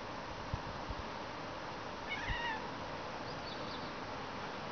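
Eurasian jay mimicking a cat's meow: one short meow-like call about two seconds in, dipping in pitch at the end, followed by a faint higher call, over a steady background hiss.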